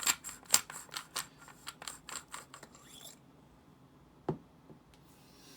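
Threaded sections of a lightsaber hilt being unscrewed by hand: a run of small clicks and scrapes for about three seconds, then a single light knock about four seconds in.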